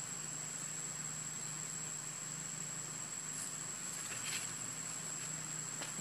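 Outdoor background with a steady high-pitched whine and a faint low hum, with brief soft rustles of macaques moving over the leaf-strewn ground around three and four seconds in, and a faint tick near the end.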